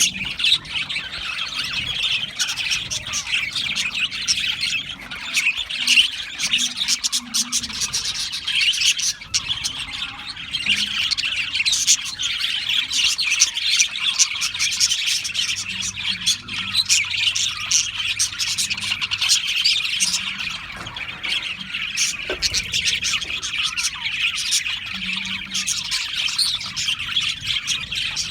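Many budgerigars chirping and chattering at once, a dense, unbroken mass of high calls.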